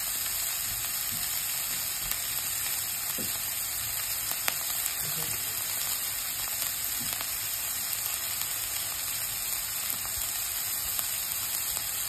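Chopped red onion and dried red chillies sizzling steadily in a little hot oil in a wok, with a few faint ticks and one sharper tick about four and a half seconds in. This is the tempering stage of a Sri Lankan stir-fry, with the onion and spices frying in the oil.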